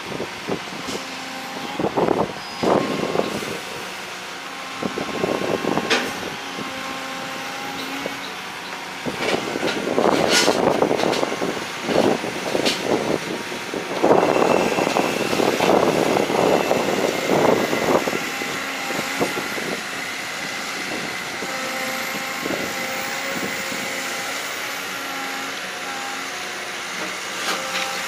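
Excavator engine running steadily under load, with repeated bursts of scraping and rattling as the machine works the earth and loads a truck. The longest and loudest bursts come in the middle.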